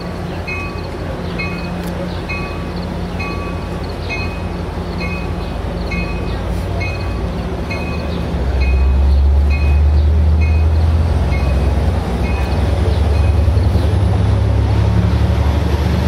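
Passenger train of bilevel cars rolling past, with a low diesel locomotive drone that grows louder about eight seconds in. A warning bell dings about once a second.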